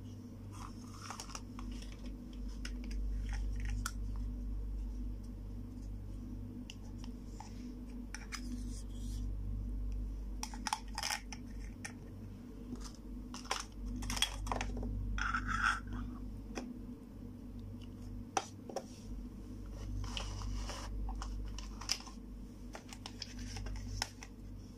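Small plastic toy kitchen pieces being picked up and handled: scattered light plastic clicks, taps and rustles, over a steady low hum.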